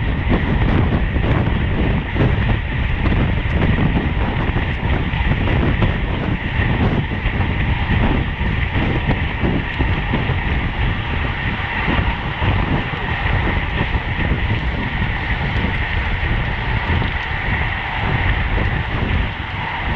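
Rushing wind and rapid rattling from a road bicycle at race speed, steady throughout, with a faint high steady whine.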